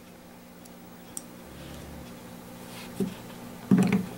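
Quiet handling of a pistol and its grip screws on a padded bench: a light tick about a second in, then soft knocks near the end as a screw is set into the walnut grip, over a faint steady hum.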